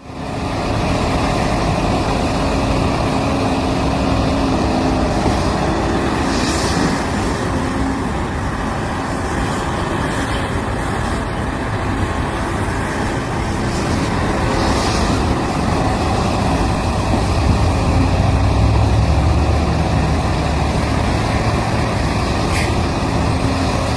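Heavy diesel mining equipment running steadily: the big excavator and haul trucks at work. Two short hisses come about 6 and 15 seconds in, and a deeper rumble builds near the end.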